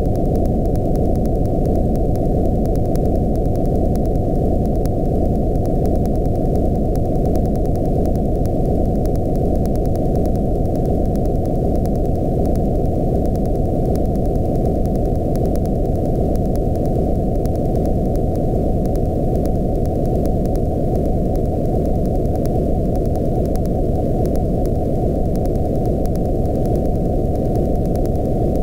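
Loud, steady electronic noise, all of it low and muffled with nothing in the upper range, with a few faint tones sliding slowly downward in pitch.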